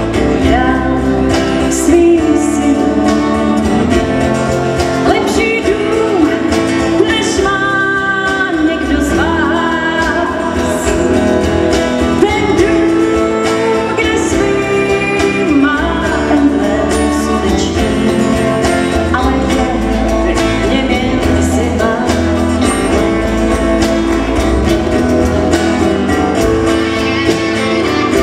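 Live country band playing: a woman singing over electric fiddle, electric guitars and drums.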